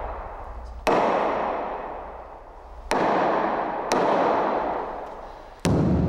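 Four heavy crashes a second or two apart, each a sudden strike that rings out and fades over one to two seconds.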